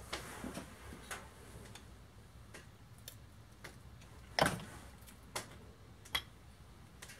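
Scattered light clicks and taps of a screwdriver and metal engine parts as a STIHL MS211 chainsaw engine's crankcase is pried apart, with one louder knock about four and a half seconds in.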